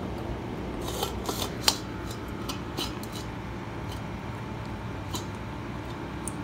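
German Shepherd puppy eating dry kibble from a stainless steel bowl: crunching, with kibble clicking against the metal, in a quick cluster during the first few seconds with one sharp clack about one and a half seconds in, then a few scattered clicks. A steady low hum underneath.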